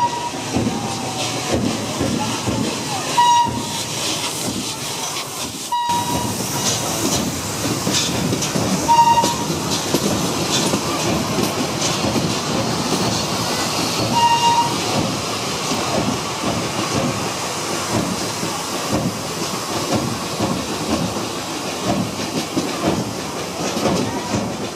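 Steam-hauled train of vintage passenger coaches rolling past close by: a steady rumble of wheels with rapid clicking over the rail joints and hissing steam. A few short high-pitched toots sound at intervals, at the loudest moments.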